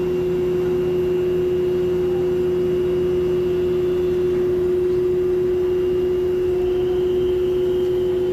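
Lloyd 1.5-ton inverter air conditioner's outdoor unit running with a loud, steady, high-pitched hum, likened to a train horn: one strong tone with fainter tones above and below it. It is a defect of the unit, which stands stable with no significant vibrations.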